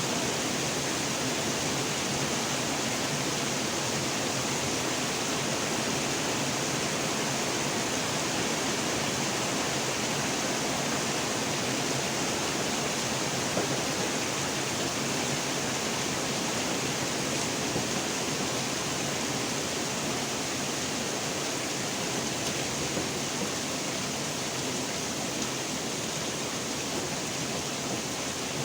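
Steady rain falling: a constant, even hiss of rainfall with no change in strength.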